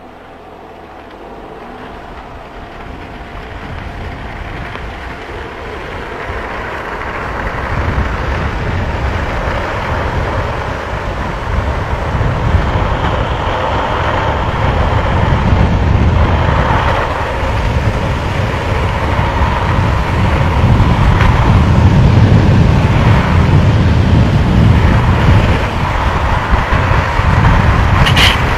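Longboard wheels rolling fast on asphalt mixed with wind rushing over the microphone. The noisy rumble builds steadily louder over the first several seconds as the boards pick up speed downhill, then holds, with a few sharp clicks near the end.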